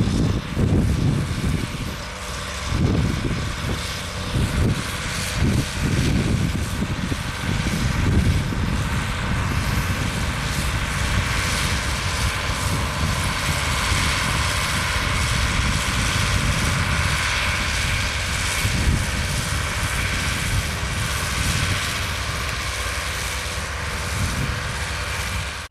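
Ford TW-35 tractor's six-cylinder turbocharged diesel engine running steadily under load as it pulls a cultivator through ploughed soil.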